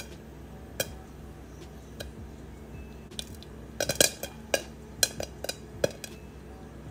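Popcorn kernels popping in a pan under a glass lid: sharp, irregular pops, a few sparse ones at first, then a quick cluster about four seconds in and several more after.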